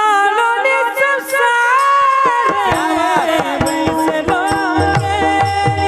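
A male devotional singer holds a long, ornamented vowel at the end of a bhajan line over a steady drone accompaniment. Hand-drum strokes come in about two seconds in, with deeper drum strokes near the end.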